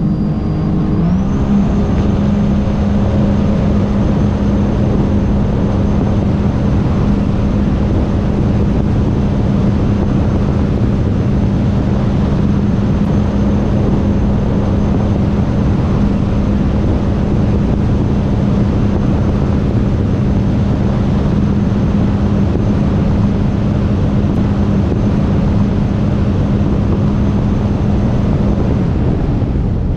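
The supercharged Rotax 300 engine of a 2022 Sea-Doo RXP-X at wide-open throttle on a top-speed run. The revs climb in the first second or two, then hold one steady high note with a thin high whine above it, under a rush of wind and water noise. The note drops away shortly before the end as the throttle comes off.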